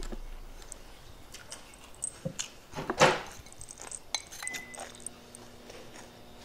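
Spoon clinking against a ceramic rice bowl while eating, in scattered soft clicks, with one louder short sound about three seconds in. A faint steady hum comes in about four and a half seconds in.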